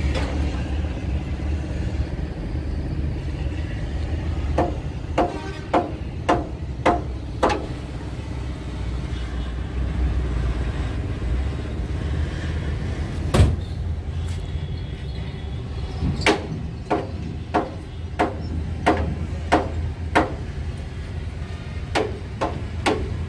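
Steady low rumble with runs of sharp, ringing knocks about two a second, and one louder knock about halfway through.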